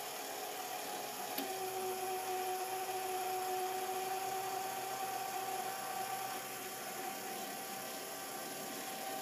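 A relay in a homemade siren timer clicks on about a second and a half in as its attack cycle switches to the 'on' phase, and a lower steady hum joins at that click. A faint, steady electrical whine from the timer runs throughout.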